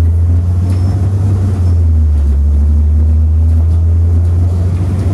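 City bus engine and road noise heard from inside the cabin while the bus drives: a loud, steady low drone with fainter humming tones above it.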